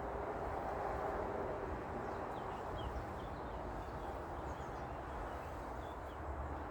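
Steady outdoor background noise with a low rumble, and faint, short high bird chirps through the middle.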